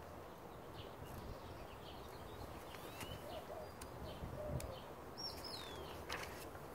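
Small birds chirping faintly here and there over low outdoor background noise, with a short paper rustle about six seconds in as the pages of a book are turned.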